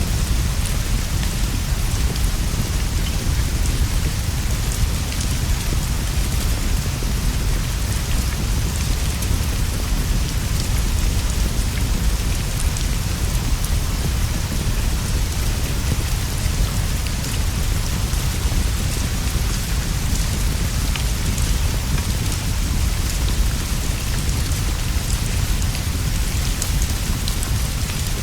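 Steady rain falling, an even hiss over a constant deep low rumble, with scattered faint ticks.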